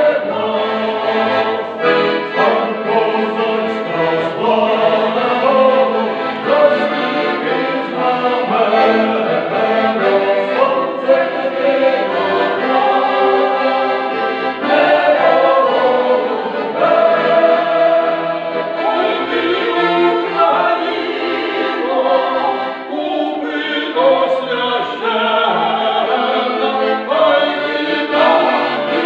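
A mixed folk choir of women and men singing a song together, accompanied by an accordion.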